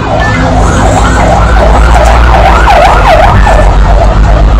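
Siren in a fast rising-and-falling yelp, about three sweeps a second, growing fainter near the end.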